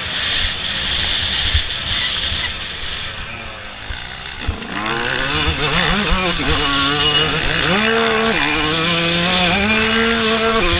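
Yamaha YZ125 two-stroke motocross bike engine under the rider, racing on a sand track. A rushing noise for the first few seconds, then from about halfway the engine revs up and down, its pitch climbing, dropping sharply and climbing again with the throttle.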